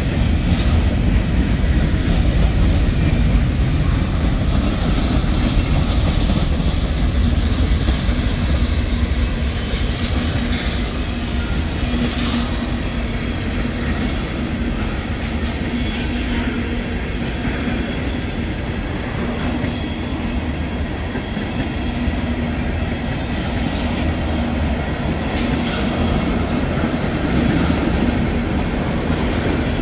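Tank cars and covered hoppers of a Union Pacific freight train rolling past at trackside: a steady heavy rumble of steel wheels on rail, with a few sharp clanks.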